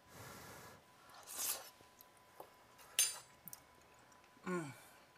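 A person savouring a mouthful of food, quietly: breaths through the nose, a single sharp click about three seconds in, and near the end a short hummed "mm" that falls in pitch, a sound of approval of the taste.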